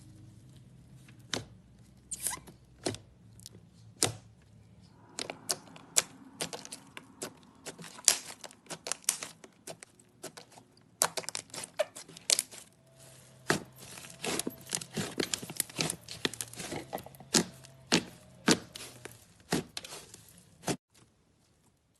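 Slime being squeezed, poked and pulled by hand, giving irregular crackling pops and sharp clicks that come thick and fast, then stop abruptly about a second before the end.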